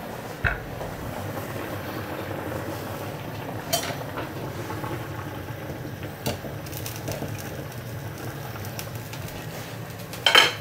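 Steady low hum of a running kitchen appliance, with a few light knocks from handling things on a wooden chopping board, the clearest near the end.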